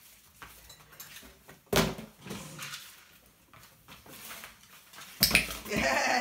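Knocks and scuffs from a cardboard shoebox being handled and set down on a laminate floor, with one sharp thump about two seconds in. Near the end a puppy jumps up and paws at the box, giving a quick flurry of louder knocks and scrabbling.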